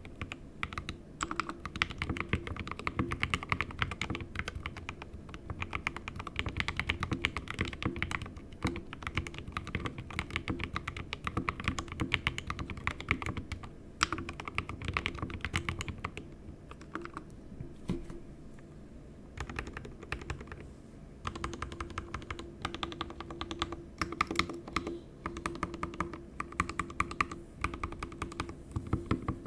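Typing on an SK61 60% keyboard with an aluminium plate, lubed 62 g Gateron Optical Red linear switches and stock keycaps, sitting on the bare desk without a deskmat: a dense run of keystroke clacks. About two-thirds of the way in, the typing thins out and gives way to spaced presses of the larger modifier keys on clipped, lubed stabilizers.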